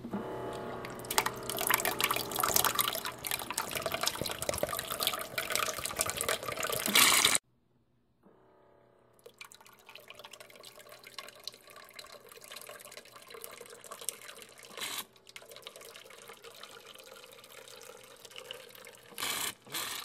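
Water draining out of a Keurig B140 brewer through its drain into a container, as a splashing stream that cuts off abruptly about seven seconds in. A fainter, steady trickle follows.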